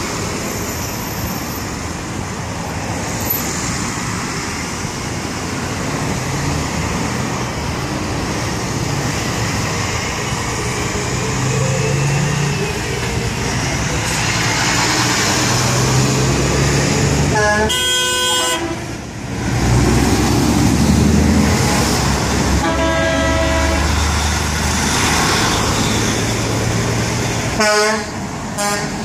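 Heavy trucks driving past in a convoy with their diesel engines running, and air horns blowing three times in the second half, the first blast the longest.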